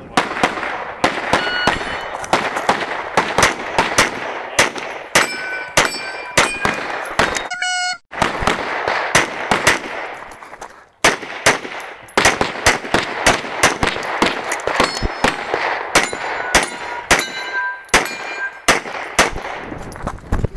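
Rapid pistol fire from a single-stack pistol in quick strings of shots, several a second, with steel targets ringing on the hits. The firing breaks off briefly twice, about eight and eleven seconds in.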